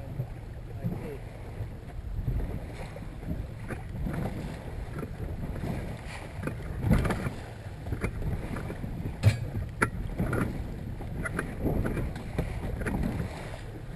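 Small open-bow boat under way through chop: water rushing and slapping against the bow hull, with wind buffeting the microphone. Irregular slaps and splashes throughout, the loudest about seven and nine seconds in.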